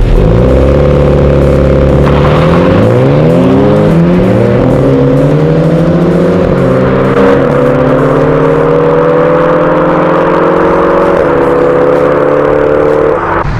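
Mini Cooper F56 turbocharged four-cylinder engine at full throttle in a drag race, revs climbing steadily under hard acceleration and dipping briefly at each upshift, a few gear changes in all.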